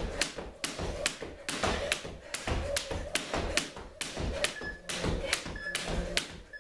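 Jump rope slapping a hardwood floor as someone skips, a sharp tap a bit over twice a second, with dull footfalls. In the last two seconds an interval timer gives three short beeps about a second apart, counting down the end of the work interval.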